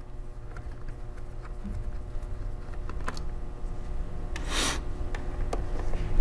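Small clicks and ticks of a Phillips screwdriver turning out screws from a laptop's plastic bottom cover, with a brief louder rustle about four and a half seconds in.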